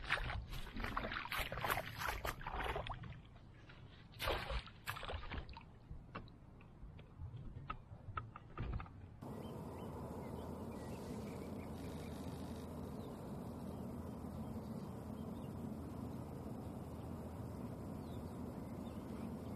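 Water splashing and sloshing in short, irregular bursts for about five seconds as a caught fish is handled into a mesh keep net in shallow water, followed by a few lighter clicks and knocks. About nine seconds in, the sound cuts to a steady, even rushing noise.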